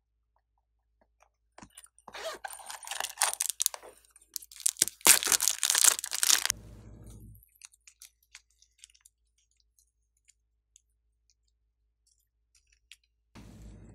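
Thin plastic wrapper crinkling and crackling as a pack of soft clay is torn open and the clay pulled out of it, in two loud spells of about two seconds each. Faint scattered clicks follow.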